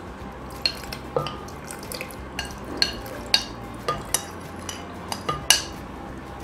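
Soaked dried apricots and their soaking liquid being tipped into a glass blender jug: irregular small clinks and taps on the glass, with soft wet splashes.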